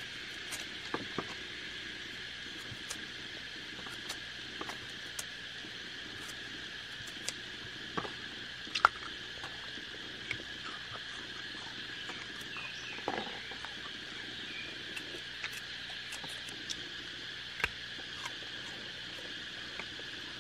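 A steady chorus of forest insects, with scattered sharp clicks and snaps as a curved blade cuts into and opens the skin of a red wild fruit; the loudest snap comes about nine seconds in.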